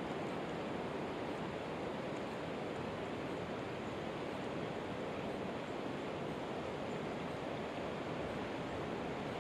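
Steady rushing of a flowing river's current, an even hiss with no distinct events.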